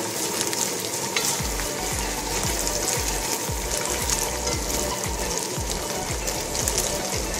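Shredded chicken with onion, garlic and ginger sizzling in hot oil in a pot while being stirred with a wooden spoon, sautéing. A repeated low thudding starts about a second and a half in.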